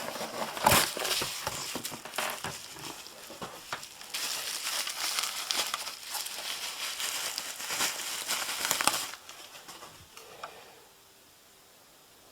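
Packaging crinkling and rustling as it is handled, with small clicks and knocks among it; it dies away about nine seconds in.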